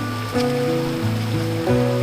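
Background music: sustained notes and chords that shift in pitch every half second or so.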